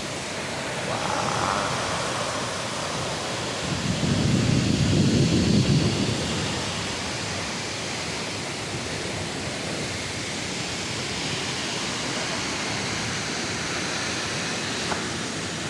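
Waterfall's steady rushing roar of falling water, with a louder low rumble for about two seconds around four seconds in.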